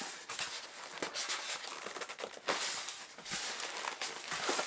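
A tight-fitting styrofoam cooler lid being worked loose by hand: irregular foam-on-foam scraping and rubbing, with scattered sharp clicks.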